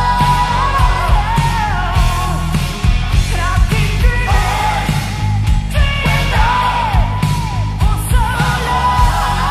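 1980s hard rock demo recording: a female lead vocal, held and bending in pitch, over distorted electric guitars, bass and a steady drum beat.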